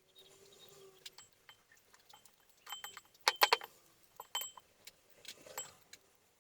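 Small hard objects clinking and clattering: a string of sharp clinks, some with a short ringing tone, loudest in a quick cluster a little past the middle.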